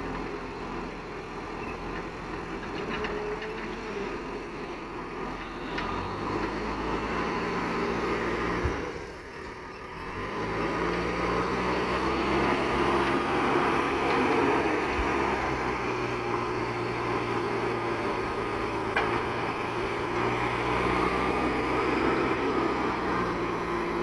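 Diesel engine of a JCB backhoe loader working under load. The engine note rises about six seconds in, dips briefly near the middle, then holds loud and steady.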